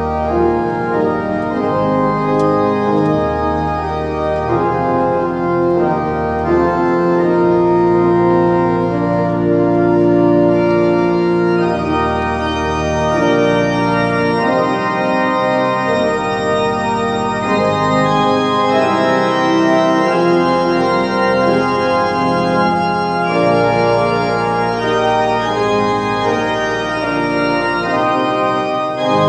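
Pipe organ diapason chorus (16-foot double diapason, 8-foot diapasons, 4-foot octaves and a 2-foot fifteenth) playing together as a full ensemble. It plays sustained chords that change every second or two, with deep bass notes coming in and out. The stops speak from a freshly restored windchest.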